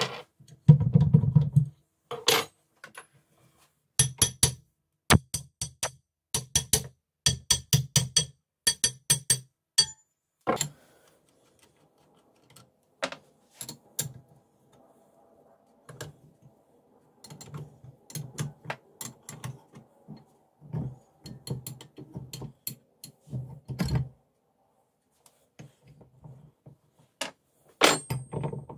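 Cast-iron fly press being taken apart by hand: a run of sharp metal clinks and dull knocks as its iron parts are handled and set down, closely spaced for several seconds, then scattered.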